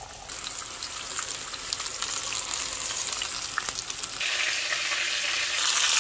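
Battered chicken and mushroom pakoras deep-frying in hot oil: a steady sizzle with scattered crackles and pops, growing louder about four seconds in.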